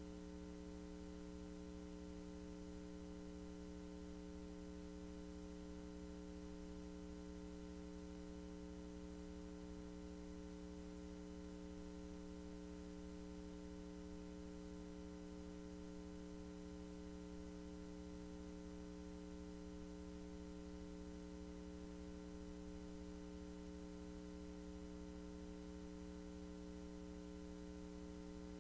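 Steady electrical hum: several fixed tones over a faint hiss, unchanging, with no other sound.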